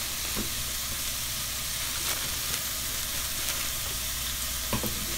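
Sliced pork belly sizzling steadily as it fries in a frying pan.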